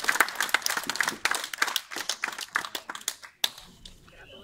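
A small group applauding with hand claps, which cut off suddenly about three and a half seconds in.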